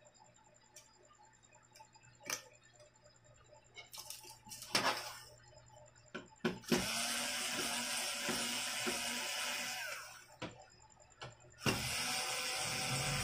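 Bosch cordless screwdriver running in two stretches of about three seconds each, backing out screws from the TV's chassis around the mainboard. A few sharp clicks of handling come before the first run.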